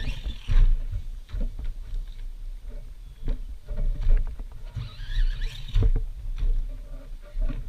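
A small electric RC car motor whining, its pitch rising and falling as it accelerates, once at the start and again about five seconds in. It runs over a constant low rumble with scattered knocks.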